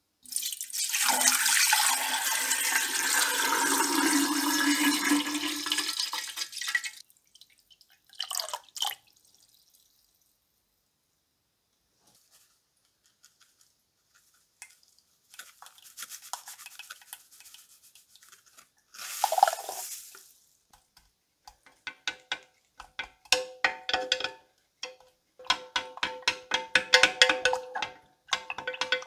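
Water poured into a tall glass jar, a steady rush lasting about six seconds. Near the end, a wooden stick stirs salt into the water to dissolve it, knocking against the glass in quick strokes so that the jar rings.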